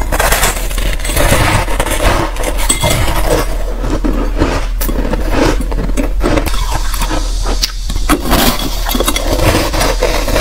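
Close-miked crunching of frosty white ice being bitten and chewed: a dense, irregular run of crisp cracks and crunches.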